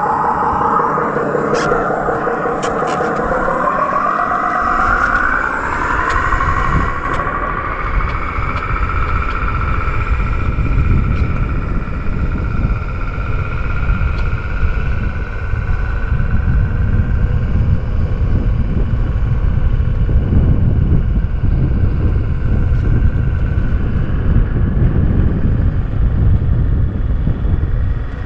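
Synthesized Mack E7 truck-engine sound from the EUC World app's AVAS, played through a KingSong KS16X electric unicycle's speaker as the wheel rides off: the pitch climbs over the first several seconds as the wheel gathers speed, then holds steady. A low rumble of wind noise builds in the second half.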